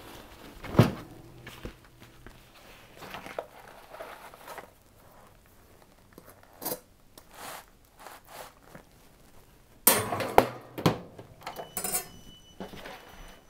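Metal clanks and knocks from a countertop toaster oven's rack and tray as a cooked pizza is pulled out and handled. There is one loud clank about a second in, a quieter stretch of small taps, then a run of sharper knocks and clatter around ten to eleven seconds in.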